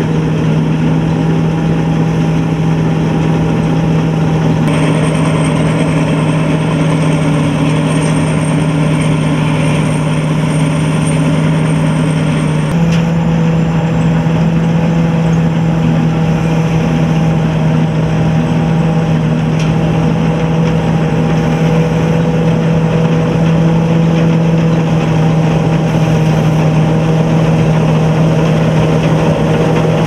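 Combine harvester with a 220 hp turbo diesel engine running steadily under load while cutting and threshing rice, a constant loud machine drone. The tone shifts slightly about 13 seconds in.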